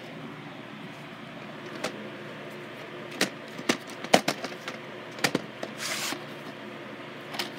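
Light plastic clicks and knocks from a VHS cassette in its case being picked up and turned over by hand, half a dozen scattered ones, with a short scrape about six seconds in, over a steady hiss.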